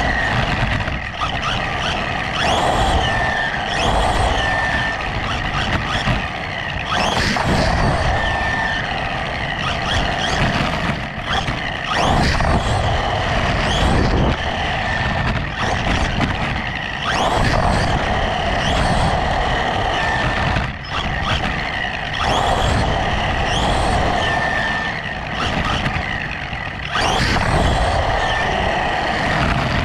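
1/16-scale brushless RC truck driving hard: the brushless motor's whine rises and falls over and over with the throttle, over a steady hiss of tyres on wet asphalt.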